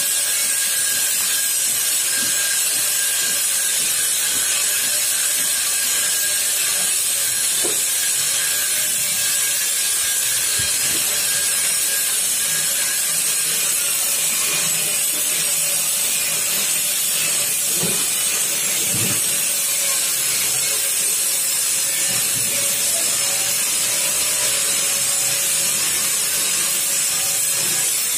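A steady hiss with a faint steady hum underneath. Over it, plastic stretch film gives occasional faint crackles and squeaks as it is pulled off the roll and wrapped around a stainless steel stove.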